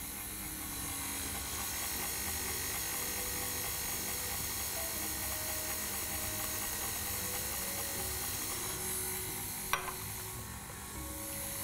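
KitchenAid Artisan stand mixer running steadily, its flat beater turning through cake batter. A single short click about ten seconds in.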